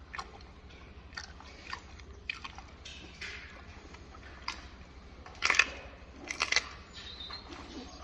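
A gorilla chewing and biting into a banana, peel and all: scattered wet, crunchy bites and smacks, loudest about five and a half and six and a half seconds in.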